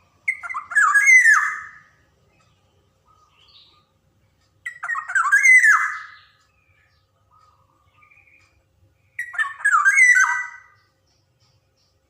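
Black-naped oriole (kepodang) calling: three loud phrases about four and a half seconds apart, each about a second and a half long and made of quick bending notes, with brief soft notes in the gaps.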